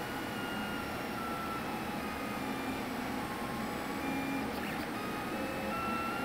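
LulzBot 3D printer's stepper motors whining as the print head and bed trace the first-layer outline of a part: a few steady tones that jump to new pitches every second or so as each move changes.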